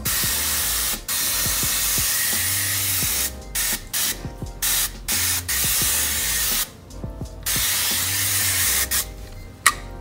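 Garden-hose pistol-grip spray nozzle on its mist setting, hissing as it soaks a car wheel: one long spray of about three seconds, then a run of shorter sprays that stop and start.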